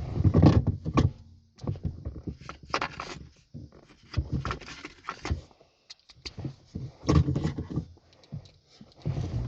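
Irregular clicks, knocks and rustling of small car dashboard parts and screws being handled, in several short bursts with brief pauses between them.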